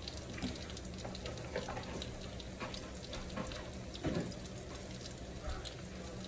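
Breaded chicken nuggets slow-frying in oil: a steady gentle sizzle with scattered small pops and crackles, and one soft knock about four seconds in.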